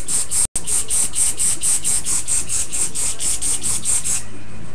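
Hairspray being sprayed onto a bun of hair: a hiss that pulses about five times a second and stops about four seconds in.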